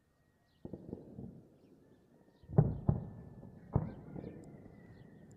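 Distant gunfire and explosions from an armed clash: four heavy reports with rumbling echoes, the loudest about two and a half seconds in and a second close behind it.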